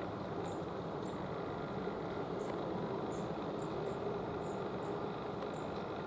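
Short, thin, very high peeps of long-tailed tits, scattered irregularly about once or twice a second, over a steady low background rumble.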